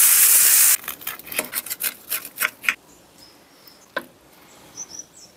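Chicken thighs sizzling loudly in a frying pan for under a second, cut off abruptly. Then about ten short, crisp scraping crunches as a fork cuts into the crispy browned skin, and a single clink of the fork on the plate about four seconds in.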